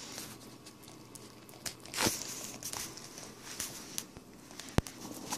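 Puppy nosing and mouthing an orange slice on a hardwood floor: faint scattered clicks and rustles, with a brief louder rustle about two seconds in and a sharp tick near the end.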